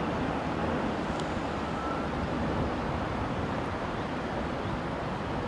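Steady street traffic noise, an even low rumble with no single vehicle standing out.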